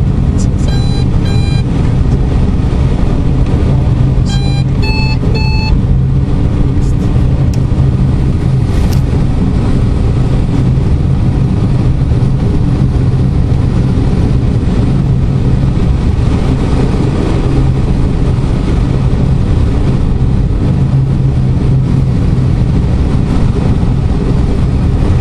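Steady rush of airflow in the cockpit of a light aircraft gliding with its engine shut off and its propeller stopped. A few short electronic beeps sound in the first six seconds.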